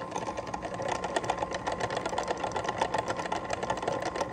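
Homemade rotary concentrator, a bottle turned on a small tumbler's rollers, running: a steady motor hum with a fast, even rattling clatter as it turns.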